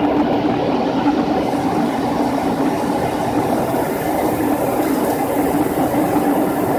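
Steady cabin noise of an airliner in descent, heard from inside the cabin: engine and airflow noise with a constant low hum, the higher hiss growing a little brighter partway through.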